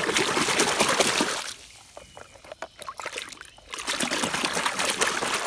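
Water splashing and sloshing as a hand scrubs a muddy toy bus under the surface. Two bouts of vigorous splashing, the first in the opening second and a half and the second from about four seconds in, with gentler sloshing between.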